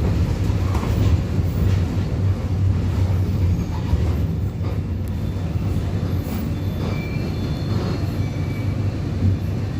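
Mercedes-Benz OF-1721 BlueTec 5 bus's four-cylinder diesel engine running steadily with a deep drone, with rattles and a few short squeaks.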